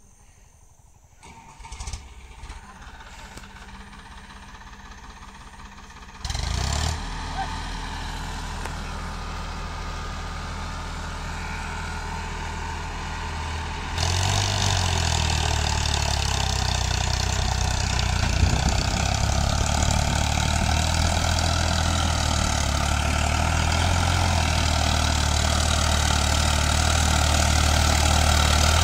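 Farmtrac tractor's diesel engine running as it pulls a trolley loaded high with sugarcane: a steady low drone. It steps up in loudness about six seconds in and again about halfway through, then grows slowly louder as the tractor nears.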